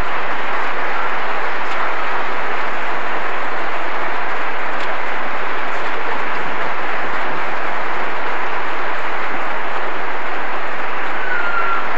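Large audience applauding steadily, a dense, even sound of many hands clapping.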